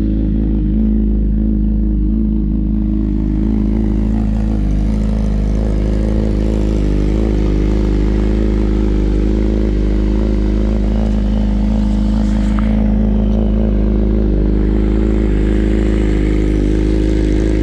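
Sport motorcycle engine idling steadily, holding one even pitch with no revving.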